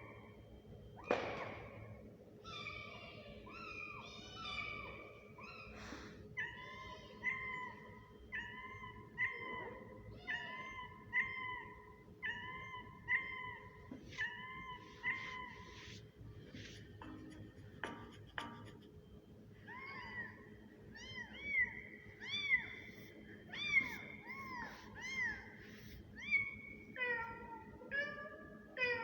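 Kitten meows: a series of short, high, arching mews repeated roughly once a second, many of them nearly identical.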